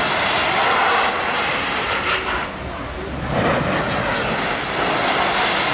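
Ice-racing cars powering through a snow-banked hairpin, a loud rushing drive noise from the cars and their tyres on ice and snow. The sound dips briefly near the middle as one car goes by, then swells again as the next car arrives.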